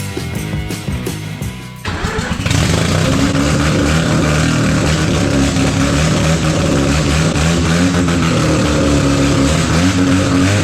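Music with a drum beat for about two seconds, then the loud note of a peripheral-port Mazda 10A rotary engine cuts in abruptly, running and revving with its pitch rising and falling.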